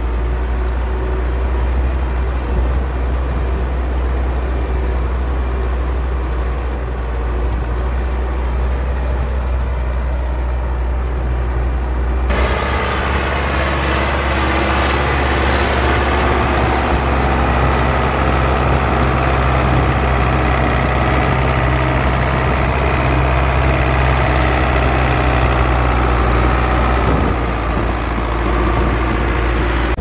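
Belarus 820 tractor's four-cylinder diesel engine running steadily under load while pulling a plough through soil. About twelve seconds in, the sound turns suddenly brighter and noisier with a higher hum, and it returns to the deeper drone near the end.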